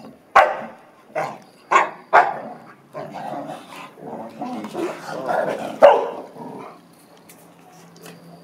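An American Akita and a Chow Chow at rough play: four sharp barks in quick succession, then a longer stretch of growling, ending in one loud bark about six seconds in.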